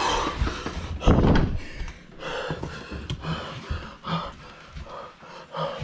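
Handling noise from a handheld camera: rubbing and scattered knocks, with a loud thump about a second in.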